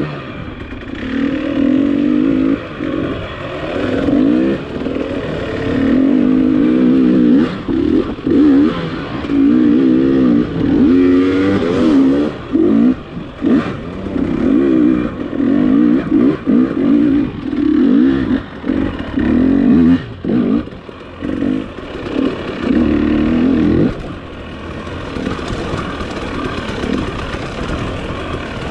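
Dirt bike engine being ridden, its pitch rising and falling with constant throttle changes and many short drops as the throttle is rolled off and on. Near the end it settles into a quieter, steadier note.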